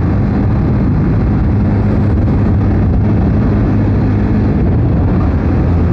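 Motorcycle engine running steadily at cruising speed as the bike rides along, with a low, even hum under a steady rush of wind and tyre noise.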